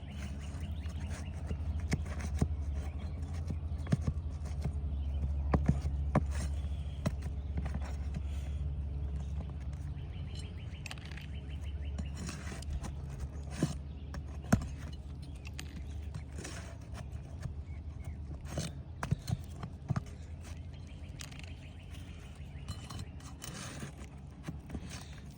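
Irregular clicks, knocks and scrapes of a pry tool working roofing nails loose from under asphalt shingles, over a steady low hum.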